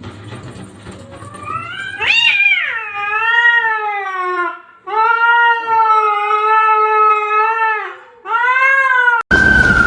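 A cat yowling: three drawn-out, wavering yowls, the first sliding up and then down over several seconds, the second about three seconds long and the last short. Just before the end, an abrupt loud burst of noise with a falling tone cuts in.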